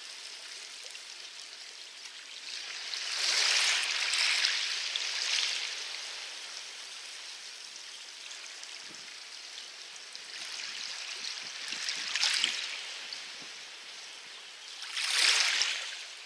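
Small, calm sea waves washing onto a loose pebble beach: a steady wash of water with three louder surges as waves break, the biggest about three seconds in and near the end.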